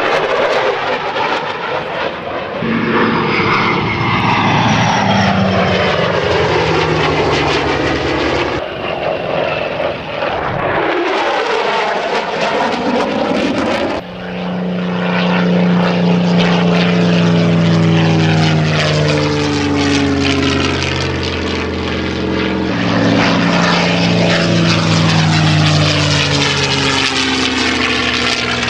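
Propeller-driven warbirds, a Supermarine Spitfire and a P-51 Mustang, flying past low with the loud, steady drone of their piston engines, the pitch sinking slightly as each passes. The sound breaks off and changes abruptly several times as one pass gives way to the next.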